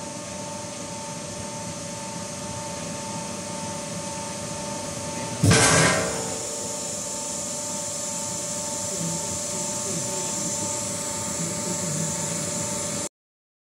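CNC metal spinning machine running with a steady hum and whine as the fan impeller shroud turns on its mandrel. About five and a half seconds in, a loud clatter sounds for about half a second. The sound cuts off abruptly near the end.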